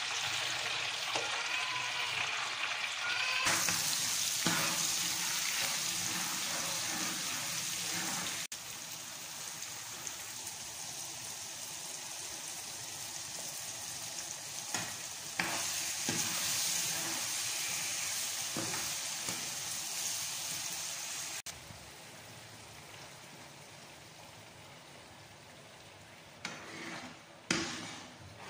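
Food sizzling in hot oil: frozen chips in a deep fryer, then tomatoes, onions and egg in a frying pan, with a spatula scraping and stirring. A few sharp knocks come near the end.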